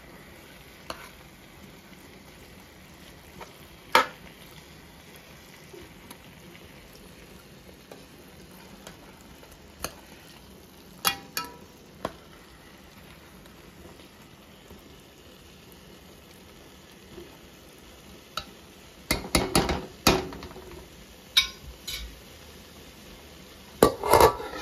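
Metal spoon stirring and scraping through fried fish and cooked squash in a metal pot, with faint sizzling underneath. The spoon knocks against the pot now and then, and a run of louder scrapes and clatters comes about two-thirds of the way in and again at the end.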